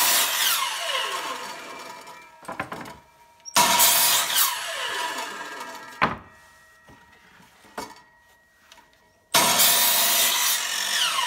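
Electric miter saw cutting boards: three cuts, one at the start, one about four seconds in and one about nine seconds in. Each begins with a sudden loud burst as the blade goes through the wood, then the blade winds down in a falling whine.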